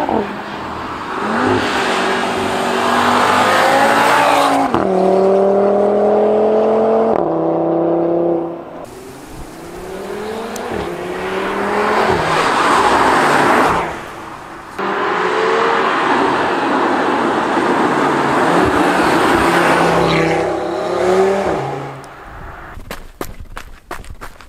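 Audi TT RS's turbocharged five-cylinder engine accelerating hard through the gears on its sports exhaust, the pitch climbing and then dropping at each gear change, in several passes cut together. Near the end the engine gives way to quieter crunching steps on gravel.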